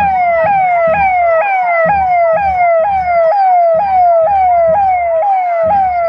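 Loud electronic siren of a police escort car, a fast repeating wail that drops in pitch and jumps back up about two and a half times a second. A low irregular rumble runs underneath.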